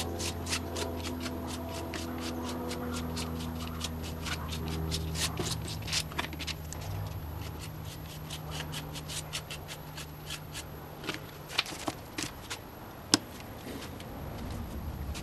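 Hands handling and rubbing the painting's poster paper on the work table: rapid, irregular ticks and scrapes that thin out in the second half, with a few sharper ticks near the end.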